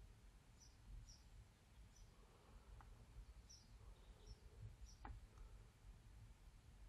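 Near silence: faint room tone with a few faint, short high chirps and two soft clicks.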